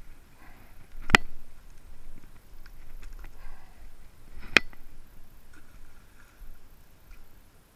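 Fishing tackle being handled close by: two sharp clicks, about a second in and again three and a half seconds later, over faint background noise.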